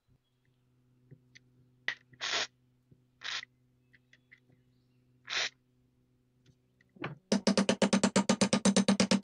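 Hand hammer striking the steel crossguard of a bayonet clamped in a vise: a very fast, even run of metallic blows, about a dozen a second, starting about seven seconds in. Before it, a few short hissing noises over a faint steady hum.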